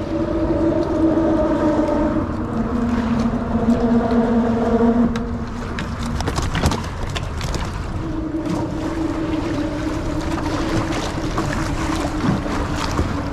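Steady droning hum of a boat motor over wind and water noise, with a run of knocks and rattles from gear being handled on the kayak about five to eight seconds in.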